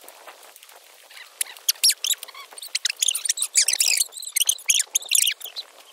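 Small birds chirping and twittering in quick high-pitched calls, few at first and growing busy from about a second and a half in.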